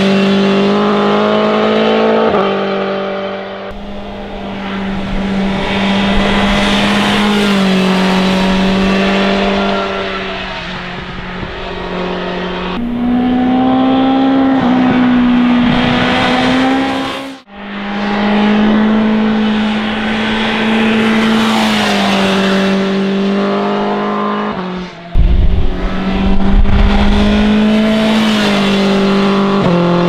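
BMW S1000 XR motorcycle's inline-four engine running hard through a series of corners, its steady high note stepping up and down in pitch as the rider accelerates, shifts and passes by. The sound breaks off for an instant about halfway through, and a loud low rumble comes in about 25 seconds in.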